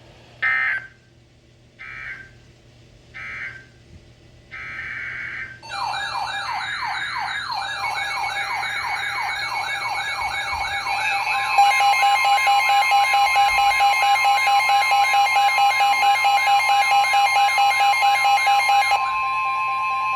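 NOAA Weather Radio alert: three short bursts of SAME digital header data about a second apart, then weather radio receivers' warbling alarms sweeping up and down. A steady 1050 Hz warning alert tone joins partway through and holds to the end.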